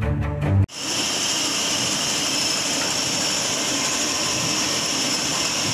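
A short burst of music cuts off under a second in. After that comes the steady, even noise of industrial machinery running in a plywood mill.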